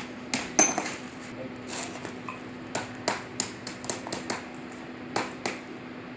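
Metal water heater element being straightened: a run of irregular sharp metallic knocks and clinks, roughly two or three a second, one ringing briefly just under a second in.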